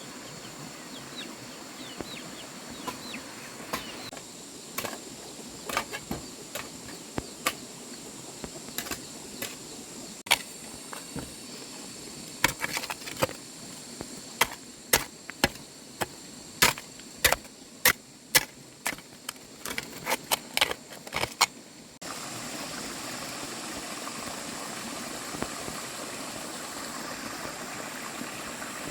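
A series of sharp knocks or snaps, irregular at first and then more frequent, up to about two a second, over a steady outdoor background. The knocks stop abruptly and give way to a steady hiss.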